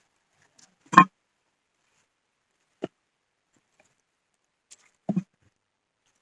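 Dry cow-dung cakes being set and pressed around a small clay pot: three or four short, separate knocks and crunches, the loudest about a second in and a double knock near the end, with quiet between.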